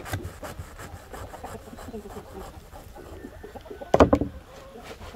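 Knife cutting through a thick mat of sprouted wheat with short sawing strokes, the dense roots crackling. About four seconds in comes one much louder thump.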